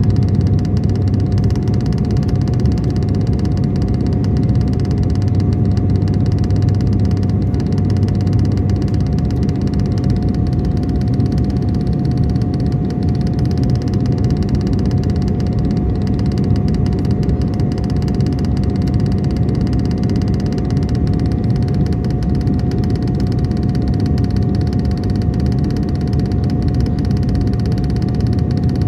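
Steady drone of an airliner's engines and airflow as heard inside the cabin, with a constant whine running through it.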